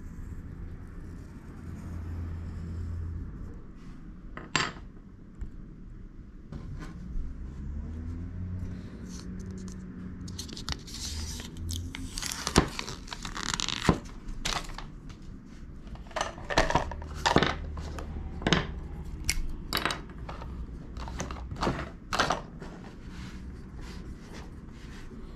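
Graphite pencil rubbing over tracing paper on a rubber carving block, then the paper and tape being peeled off the block with a crinkling rustle about halfway through. Several sharp clicks and taps follow as tools are handled on a wooden table.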